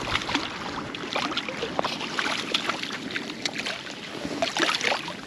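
A hooked trout thrashing and splashing at the water's surface as it is drawn into a landing net, a run of irregular sharp splashes.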